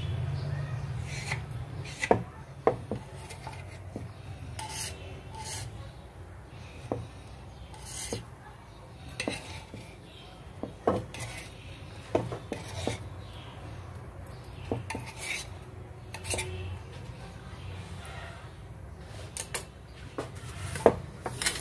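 Knife blade tapping and scraping on a round pastry board while cutting rolled dough into small squares and sliding the pieces apart: irregular sharp clicks, a few stronger taps among softer scrapes.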